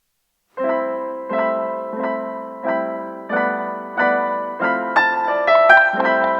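Background piano music: chords struck about every two-thirds of a second, with a quick run of higher notes near the end.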